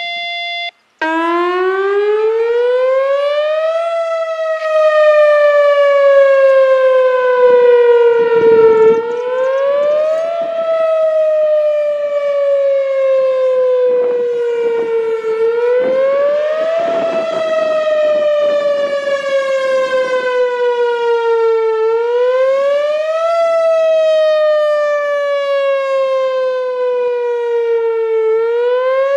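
A siren wailing, starting about a second in. Its pitch climbs for a second or two, then slides slowly down over about five seconds, and the cycle repeats about every six and a half seconds.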